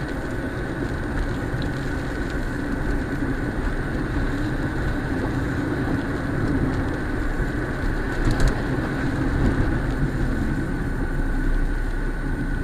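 A car driving on a wet road, heard from inside the cabin: steady engine and tyre noise with a thin steady whine throughout, and a brief click about eight seconds in.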